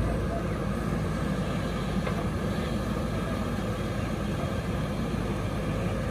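JCB 3DX backhoe loader's diesel engine running steadily as the backhoe arm swings out, over the rush of the river.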